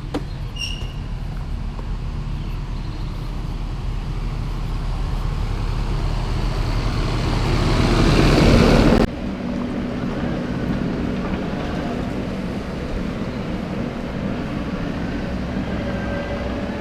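Skid steer engine running and working, growing louder over several seconds; the sound breaks off abruptly about nine seconds in and a steady engine drone follows.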